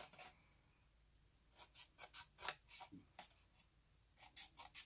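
Small scissors snipping notches into cardstock: a run of short, quiet snips starting about a second and a half in, then a few more near the end.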